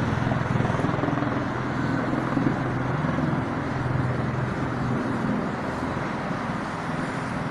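A large military rotorcraft flying past: a steady low rotor thrum that slowly fades, over the hiss of city road traffic.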